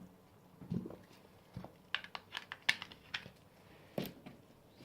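Slime being handled and mixed: a scatter of small, irregular clicks and soft sticky taps.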